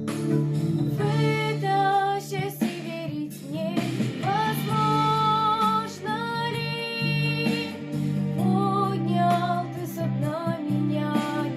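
A female voice singing a sung melody with vibrato over instrumental accompaniment.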